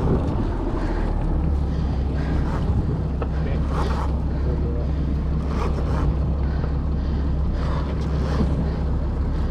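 A boat's engine running steadily at low speed as the boat is held on the fish, with wind on the microphone and brief swishes every second or two.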